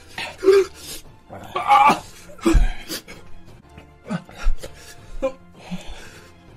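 Background music over two men coughing and gasping in short irregular bursts, burning from an extremely spicy chip.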